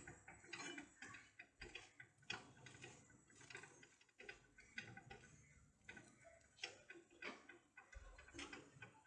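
Near silence with faint, scattered clicks and light taps at irregular intervals.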